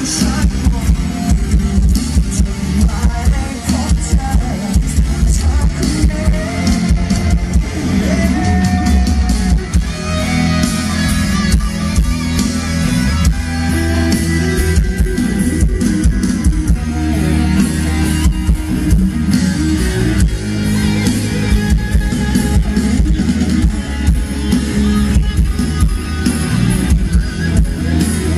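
A live rock band playing, with electric guitar and drum kit to a steady beat, recorded from among the audience.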